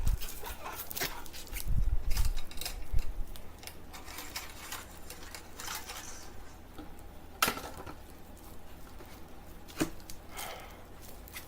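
Scattered clicks, knocks and light clinks of hard objects being handled, with a low thump about two seconds in and two sharp clicks later on.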